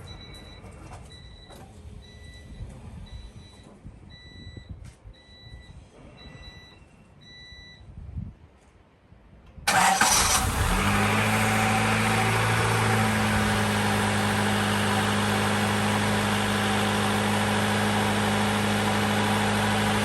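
A short electronic beep repeats at a steady pace for about eight seconds. Then, near the middle, the Honda Civic's four-cylinder engine fires suddenly and settles into a steady idle, its speed rising slightly at first. It is running at last after the faulty ignition coil was replaced, where before it only cranked without starting.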